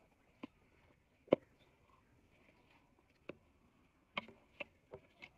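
Steel spatula clinking and scraping against a steel bowl as soaked rice is pushed out into a pot of simmering broth: a few sharp clinks, the loudest about a second in, then a quick run of them near the end.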